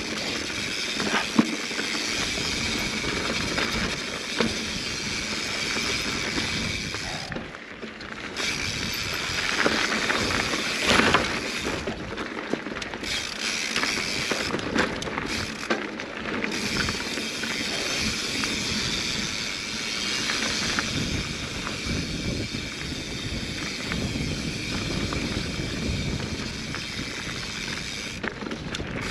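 Mountain bike rolling down a dirt singletrack: steady tyre noise on dirt and loose stones with wind rushing over the microphone, sprinkled with small rattles and knocks from the bike going over bumps, the loudest knock about a third of the way in, and the rear hub's freewheel ticking at times.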